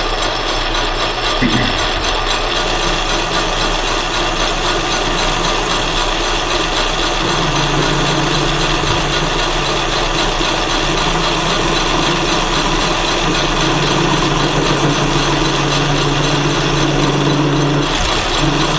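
Atlas 10 metal lathe running with its gears whirring while a carbide insert turning tool takes a hand-fed 0.020-inch cut on a cold-rolled 1018 steel bar, with a little chatter. A steady low tone joins about seven seconds in and stops near the end.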